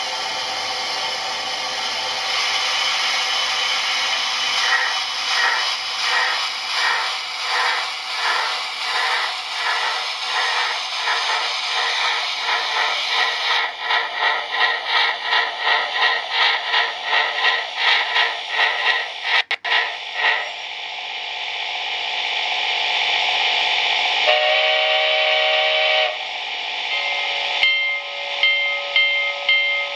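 DCC sound decoder in an HO-scale Rivarossi C&O 2-6-6-6 Allegheny model steam locomotive, playing through the model's small speaker. A steady steam hiss turns into exhaust chuffs that speed up as the engine gets under way. About three quarters of the way through comes a short chime whistle blast, and near the end the chuffing resumes with a repeating ringing tone.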